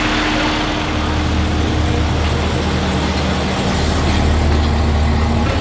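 Steady machine drone: a constant low hum with an even rush of noise above it, holding level throughout.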